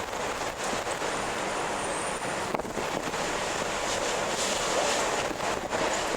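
Wind blowing strongly and steadily, a continuous rushing noise that swells slightly a little past the middle.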